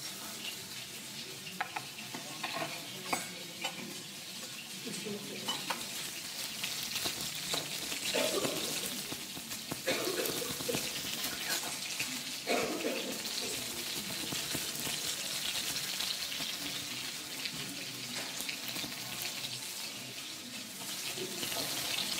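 Duck breast searing in a hot pan, the fat sizzling steadily, with a few light knocks of utensils in the first few seconds.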